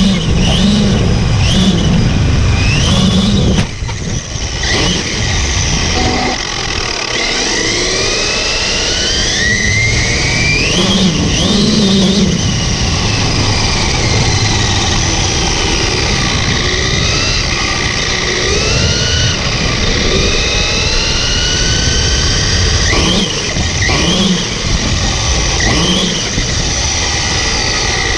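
Electric motor of an Axial Yeti XL RC rock racer whining up and down in pitch as the throttle is worked, over loud rumbling drivetrain and tyre noise, with a brief drop in level about four seconds in. The motor's pinion gear has its set screw backed out and is slipping against the spur gear, adding grinding and squealing.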